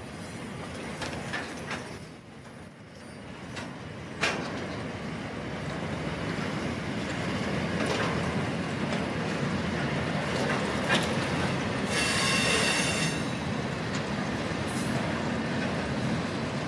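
Freight train wagons rolling over the rails, a steady rumble that grows louder, with scattered clanks and one sharp bang about four seconds in. A brief high-pitched wheel squeal comes about twelve seconds in.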